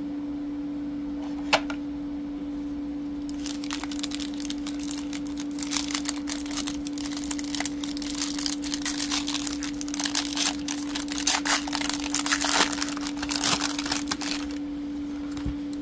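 Clear plastic wrapper crinkling as it is torn open and peeled off a stack of trading cards, from about three seconds in until near the end. A single sharp click comes about a second and a half in, and a steady low hum runs underneath.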